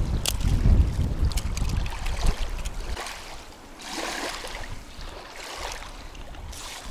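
Wind buffeting the microphone, heavy in the first three seconds, then easing off to leave a softer, steady rushing hiss of running river water with a few light clicks.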